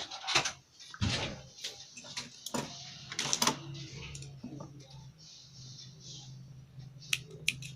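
Clicks and knocks of fabric and parts being handled at a sewing machine, followed from about three seconds in by a steady low hum, with a couple of sharp clicks near the end.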